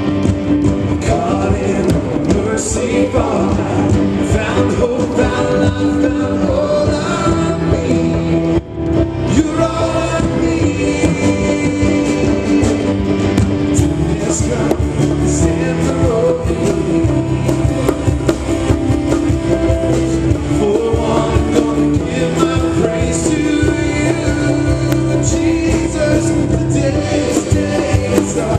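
Live worship band playing a contemporary worship song: electric guitar, keyboard and drums under lead and backing vocals singing together. The band cuts out for an instant about nine seconds in, then carries on.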